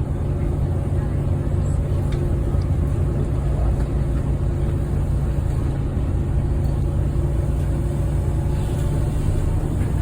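Volvo B9TL double-decker bus's diesel engine running steadily with a loud vacuum-cleaner-like 'hoover' whine, several level whining tones over a deep rumble.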